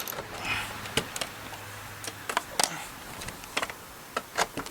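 Scattered light clicks and taps from small parts being handled while the wiring and battery are fastened down, with a faint low hum that fades out about two seconds in.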